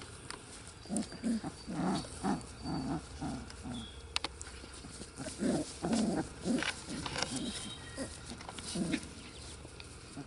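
Six-week-old Pumi puppies making short, low play growls and grunts, in two quick runs, as they tug and wrestle.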